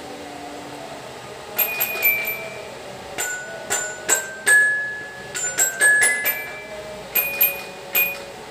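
Sobebear baby knocking xylophone organ, a plastic toy that plays electronic xylophone and piano tones, played by pressing its keys one at a time. About twenty short bell-like notes at different pitches, each starting with a click and ringing briefly, beginning about a second and a half in.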